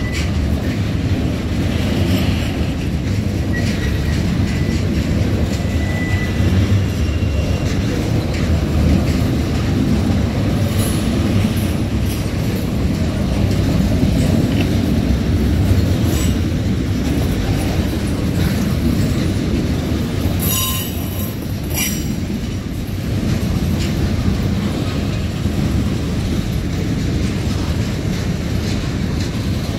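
Freight train boxcars rolling past over jointed track: a steady low rumble of steel wheels on rail with clickety-clack from the wheels, faint brief wheel squeals now and then, and a sharper high-pitched burst about twenty seconds in.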